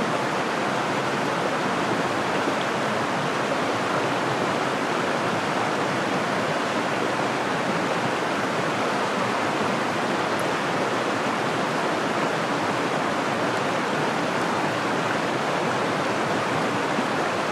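Small rocky mountain creek running steadily over stones in a shallow riffle, a constant rushing of water.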